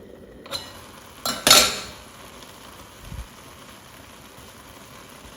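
Metal pot lid being set onto a cooking pot: a few clinks, the loudest clank about one and a half seconds in with a short ring, then a soft low thump around three seconds in. A faint steady hiss underneath.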